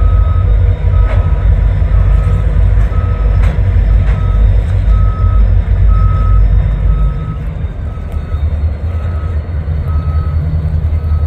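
The 16-cylinder diesel engines of three EMD GP40-2 locomotives running with a heavy low rumble that eases off about seven seconds in, with a few metallic clanks in the first half. A back-up alarm beeps steadily, about one and a half beeps a second.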